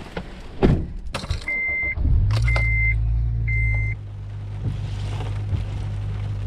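Two thumps, then three short electronic warning chimes about a second apart as the car's engine starts about two seconds in. It runs faster and louder for a couple of seconds, then settles into a steady idle.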